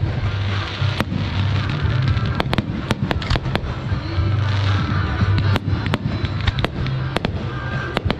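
Fireworks display: a rapid, irregular string of sharp bangs, several every second, over a continuous low rumble.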